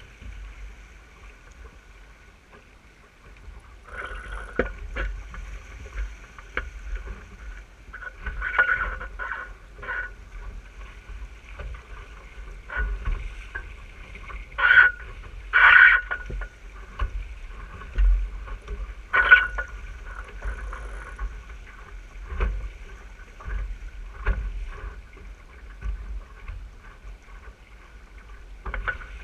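Water rushing and slapping against the hull of an RS600 sailing dinghy under way, with wind buffeting the microphone. It is quieter for the first few seconds and picks up from about four seconds in, with several louder splashes.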